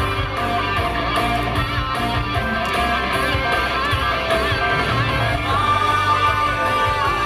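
Rock music playing as the soundtrack of a fireworks show: a steady bass with a lead line that bends up and down.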